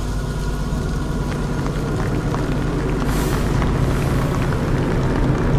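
A steady low rumbling drone with a faint high tone above it and scattered faint crackles.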